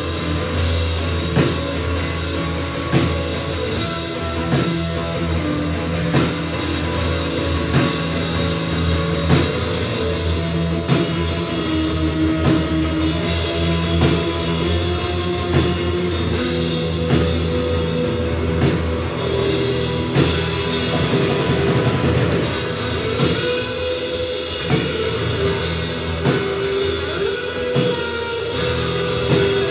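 Live rock duo playing: electric guitar through an amp over a drum kit, with a heavy accent about every second and a half.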